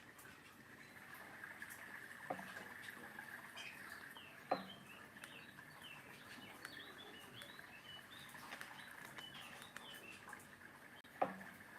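Small birds chirping over and over, short scattered calls over a faint steady high whine. Three sharp knocks cut through, the loudest about four and a half seconds in.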